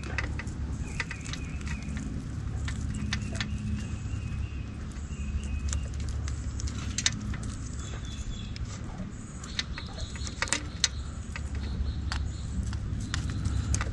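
Steady low rumble of traffic, with scattered small clicks and ticks from e-bike wiring-harness connectors and a utility knife being handled up close, and faint bird chirps now and then.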